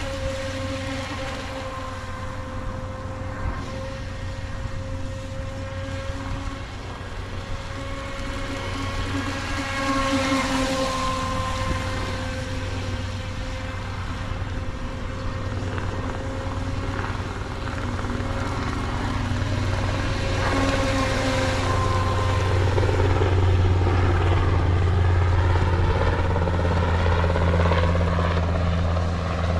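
Small RC speedboat's electric motor whining steadily as it runs on the water, the pitch wavering slightly. A low rumble builds up and grows louder toward the end.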